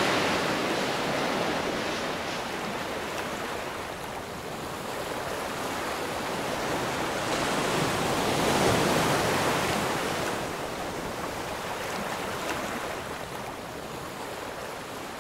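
Ocean surf breaking and washing up a pebble beach, a steady rush that eases off and swells again about halfway through.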